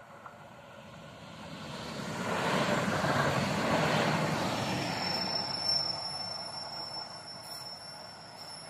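A short railcar passing over a level crossing, coming up to its loudest about three seconds in and fading away as it leaves. A thin, steady high whine starts about five seconds in.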